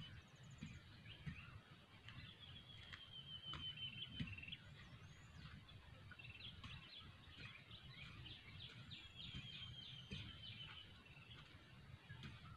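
Faint songbird calls: rapid trills and runs of quick repeated notes, with a few thin high whistles. Underneath is a low wind rumble, with a few soft knocks.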